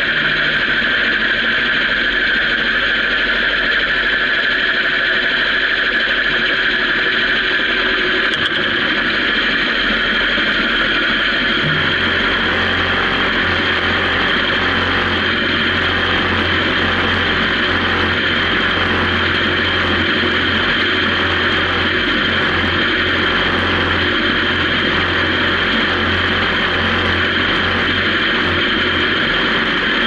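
Honda CB750's air-cooled inline-four engine running steadily at low revs, then idling, with a deeper hum coming in about twelve seconds in.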